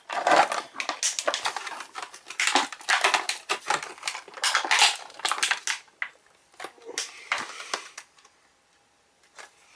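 Plastic toy packaging crackling and clicking as it is handled and scissors clip off its rubber-band ties. The handling is dense for about six seconds, turns to scattered clicks, and stops about eight seconds in.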